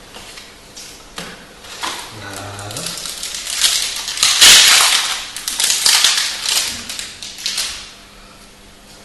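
A Magic: The Gathering booster pack's foil wrapper crinkling and tearing as it is ripped open, a dense crackle that is loudest about halfway through and dies away about a second before the end.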